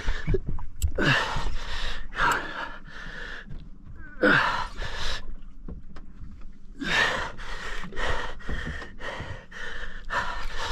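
A man breathing hard in repeated gasps and heavy exhalations, about every half second in the last few seconds, from the strain of fighting a big fish on a heavy rod.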